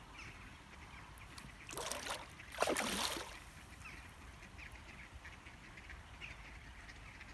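Ducks quacking, with two louder harsh calls about two and three seconds in.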